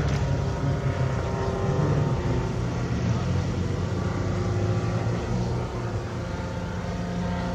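Rotax 582 two-stroke engine and propeller of a Loehle 5151 Mustang ultralight replica droning steadily as it flies past, growing a little quieter about six seconds in.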